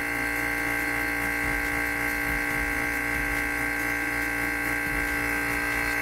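Vacuum pump running steadily as it pumps the air out of a vacuum chamber, a constant hum with a whine above it that does not change in pitch.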